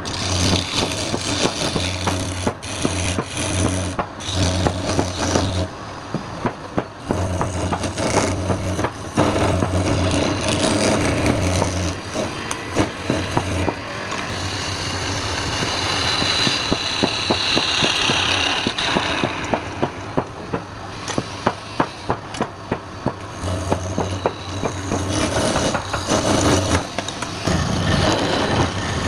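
Wood lathe running while a turning tool cuts and scrapes the spinning workpiece. The scraping comes with many small ticks and rattles over a low hum that comes and goes.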